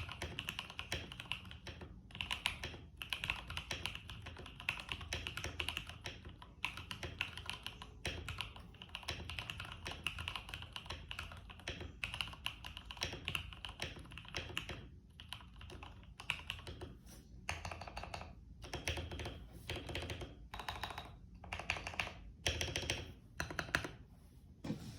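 IK75 keyboard on a desk mat being typed on, a fast continuous run of keystrokes that breaks into shorter separate bursts with small pauses in the last third.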